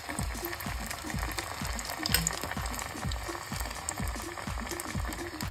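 A hara bhara kabab deep-frying in hot oil in a kadhai, the oil sizzling and bubbling steadily around the freshly added patty. Background electronic dance music with a steady kick-drum beat, about two beats a second, runs underneath.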